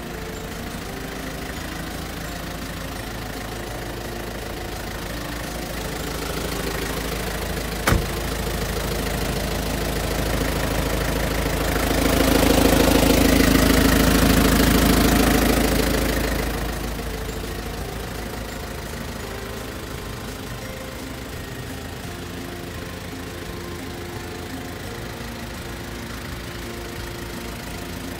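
Isuzu Elf light truck's engine idling steadily, louder for a few seconds in the middle when heard close to the engine under the truck. There is one sharp click about eight seconds in.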